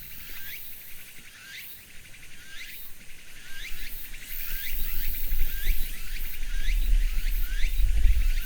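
Cicadas singing: repeated short rising calls, a bit more than one a second, over a steady high-pitched drone from others. A low rumble grows louder from about halfway.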